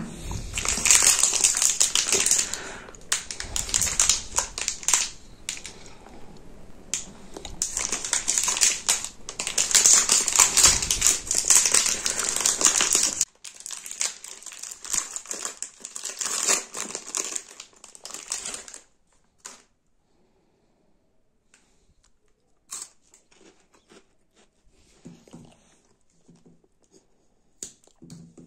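Packaged chocolate biscuits and snacks being crushed, the plastic wrappers crinkling and the biscuits crunching inside. The crackling is dense for the first thirteen seconds, thins out until about nineteen seconds in, and then gives way to near quiet with a few small clicks.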